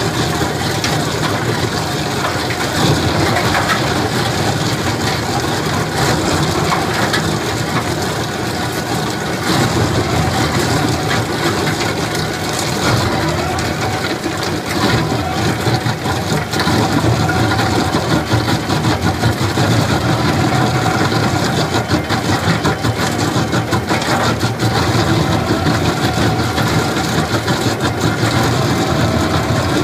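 Ditch Witch RT-115 trencher's diesel engine running steadily under load while its rock-saw wheel cuts through soil, with a dense crunching and rattling from the saw teeth and thrown dirt over the engine's drone.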